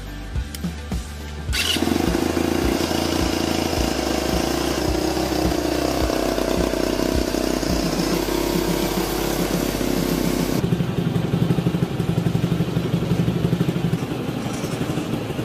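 Small Honda engine starting up about a second and a half in and then running steadily, its loudness pulsing unevenly for a few seconds near the end.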